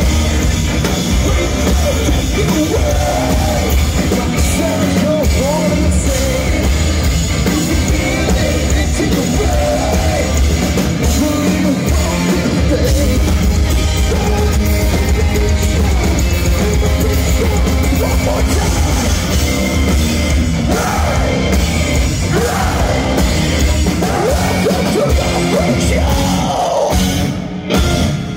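Heavy rock band playing live: distorted electric guitars, bass and drum kit under a shouted and sung lead vocal. The band drops out briefly near the end, then comes back in.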